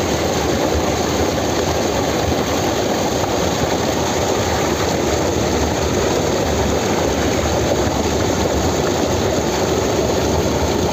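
A small forest stream, swollen with rainwater, cascading over rocks as a little waterfall: a steady, loud rush of water.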